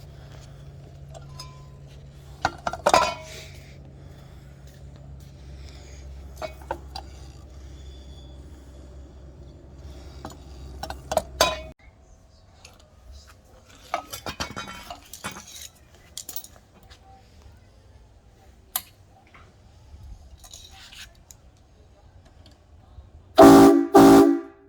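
Metallic clinks and knocks over a steady low hum that cuts off about halfway. Near the end come two short, very loud blasts of a United Pacific train horn.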